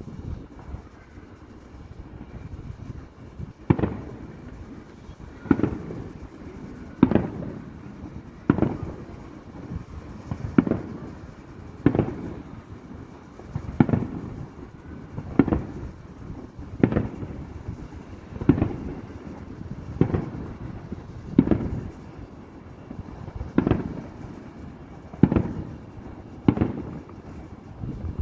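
Fireworks shells bursting in a steady series, starting a few seconds in. One bang comes about every second and a half, each trailing off in a rumbling tail.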